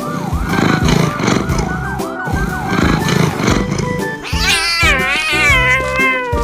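An emergency-vehicle siren in a rapid wailing yelp, about two sweeps a second, over background music. About two-thirds of the way in a cat starts a long, wavering, drawn-out meow.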